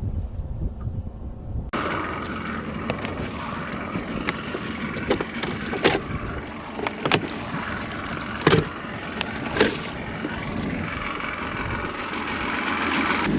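Bass boat out on wind-chopped water: wind rumbling on the microphone, then a steady rushing noise with several sharp knocks, the loudest a little before halfway.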